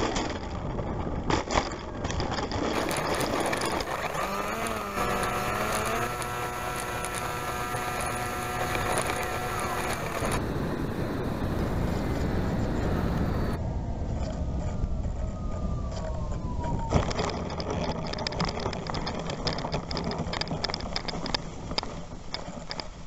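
RC plane heard through its onboard camera over landings: wind rumble and an electric motor whine that rises, then holds steady for several seconds. Later a whine falls in pitch as the throttle comes down and ends in a sharp knock as the landing gear hits the ground. This is followed by rapid rattling ticks from the wheels and gear running over rough ground.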